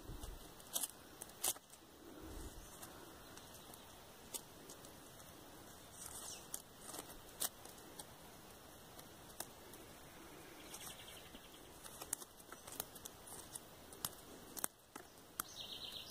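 Small knife cutting and stripping the leaves off an acerola twig held in the hands: faint, scattered clicks, snaps and rustles.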